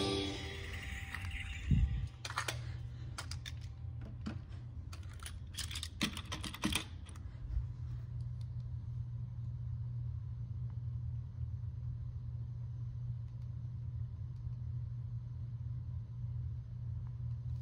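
A thump, then a quick, irregular run of sharp clicks over several seconds, like small hard objects being handled, giving way to a steady low hum.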